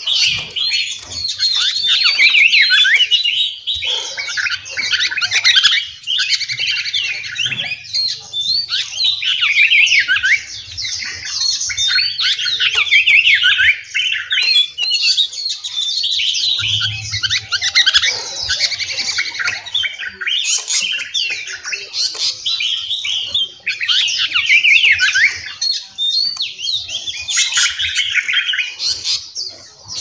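Many small cage birds in an aviary singing and chirping together: a dense, overlapping chorus of quick, high twitters and trills.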